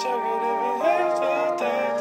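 Background music: held chords with a melody that glides between notes.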